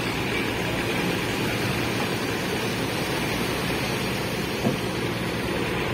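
Farm tractor engine running steadily as it tows a wooden fishing boat up the beach on a rope, under a steady rushing noise. One short knock comes a little before the end.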